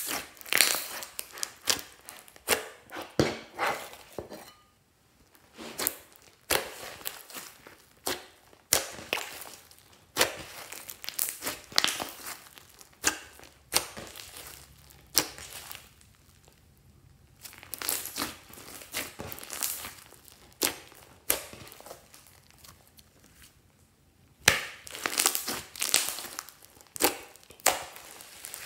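Glossy slime being squeezed, stretched and poked by hand, giving clusters of sharp sticky pops and crackles with short quiet pauses between handfuls.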